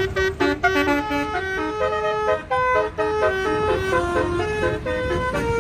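Tour bus basuri telolet horn playing a quick melody, its notes changing several times a second, over a low rumble.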